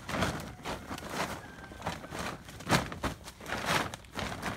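A tarp rustling and crinkling in irregular bursts as it is handled and pulled straight, with a few sharper crackles.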